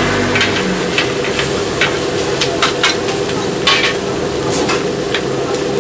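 Gopchang and vegetables sizzling on a flat metal griddle while metal spatulas scrape and clack against the plate at an irregular pace as the food is tossed.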